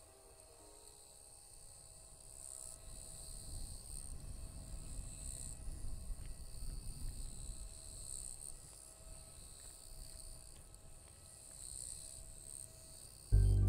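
A steady high chorus of summer insects, swelling and easing every few seconds, under a low rumble that grows in the middle and fades again. Music starts suddenly and loudly just before the end.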